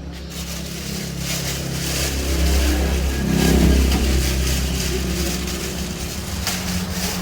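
An engine running with a steady low hum, growing louder toward the middle and then easing off.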